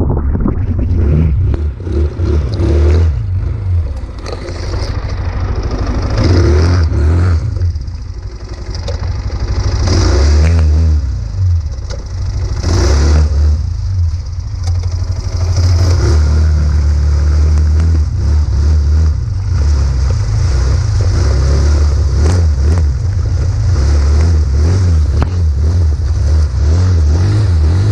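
KXD 200 cc ATV engine running off-road, its revs rising and falling several times over a heavy low rumble. Over it, the tyres clatter and scrape over wet stones and mud.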